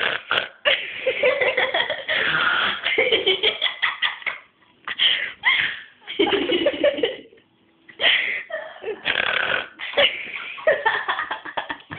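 A sleeping person snoring with rough, rattling snores, mixed with friends' laughter.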